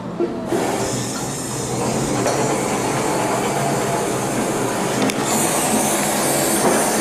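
Steady sizzling hiss of food cooking. About five seconds in there is a sharp click, and then the brighter, higher hiss of a kitchen blowtorch flame on food in a pan.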